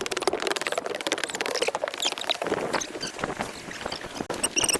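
Outdoor sound of a dense, rapid crackle, with short high chirps of small birds near the end.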